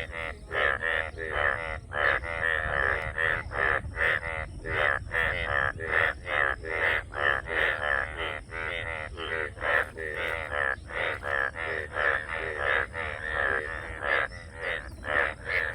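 A chorus of frogs calling: many overlapping, pulsing croaks repeating about three times a second, with a steady high tone underneath.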